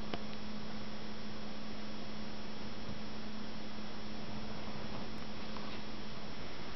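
Steady electrical hum over a constant hiss, with the hum cutting out about six seconds in.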